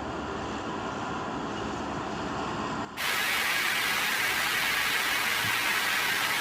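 A dull, hissing noise with a faint hum. About three seconds in it breaks off briefly and switches to loud, bright television static.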